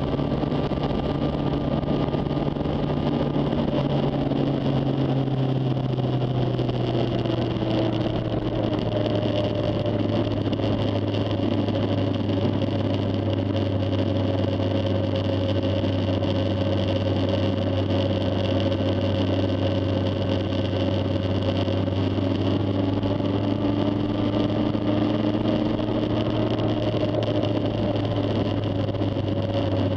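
Honda CB400 Super Bol d'Or's inline-four engine running steadily while riding. Its pitch eases down a little about four seconds in, then holds steady.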